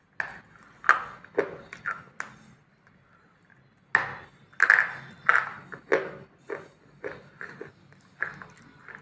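Crunchy biting into a hard, dark, foil-wrapped food held at the mouth, in two runs of sharp crunches: one near the start and a longer one from about four seconds in.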